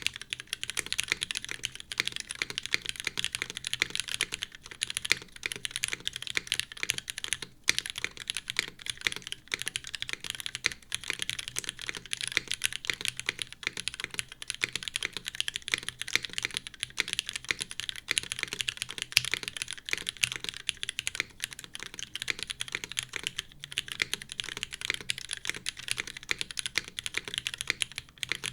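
Continuous fast typing on a Merisi Sessantacinque top-mount mechanical keyboard with an aluminium plate, lubed linear Cherry Hyperglide Black switches and GMK keycaps: a rapid run of key clacks with a few brief pauses.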